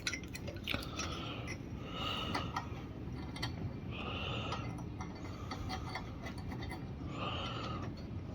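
Small metal engine parts being handled and fitted by hand: light clicks and several short scrapes as a carburettor linkage is tried in place on a Briggs & Stratton-type RV150 mower engine.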